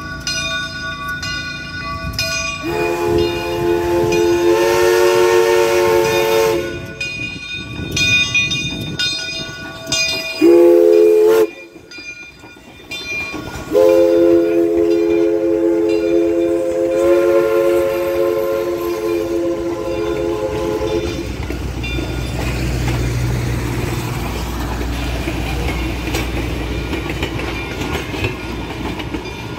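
Southern 401, a 2-8-0 steam locomotive, sounds its chime whistle: a long blast, a short one, then a longer blast of several notes at once. A bell rings in steady strokes before and between the blasts. The train then rolls past with a low rumble and clicking wheels on the rail joints.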